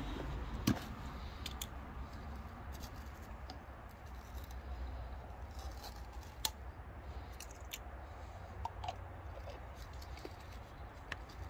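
Small plastic clicks and scraping as the cap of a plastic bottle of rain repellent is unscrewed, its foil seal picked off and an applicator cap twisted on. The sharpest clicks come about a second in and near the middle, over a low steady rumble.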